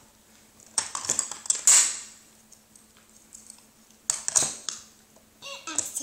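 Chunky plastic alphabet letter pieces clattering against each other and a plastic tub as a toddler rummages through them: two bouts of rattling clicks, about a second in and again about four seconds in.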